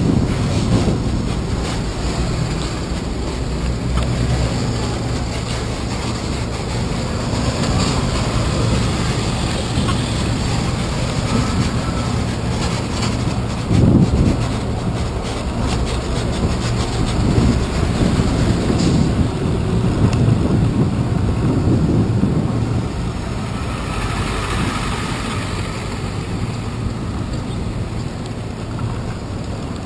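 City street traffic heard from a moving bicycle: a steady low rumble of nearby truck engines and tyres, with wind on the microphone. About fourteen seconds in there is a brief louder knock.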